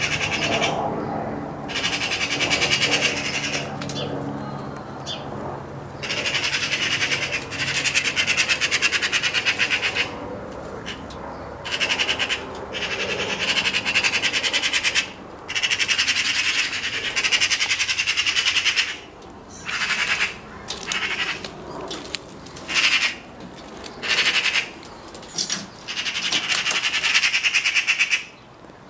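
Eurasian magpies giving harsh rattling chatter in repeated bursts of a second to several seconds with short breaks between. This chatter is the magpie's alarm call.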